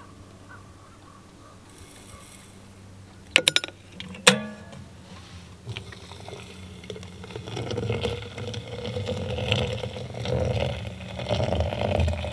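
Sharp metal clicks and a clank as a stainless steel kettle is picked up and handled, then hot water poured from the kettle into an insulated French press, a splashing, gurgling pour that starts about seven seconds in and grows louder.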